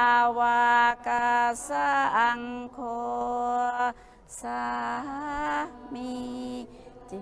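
A woman's voice singing a chanted mantra in long held notes, about six of them with short breaks between, some with a wavering vibrato.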